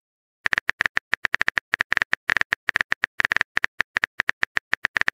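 Virtual phone-keyboard typing clicks as a message is typed letter by letter: a quick, uneven run of short, identical clicks, several a second, starting about half a second in.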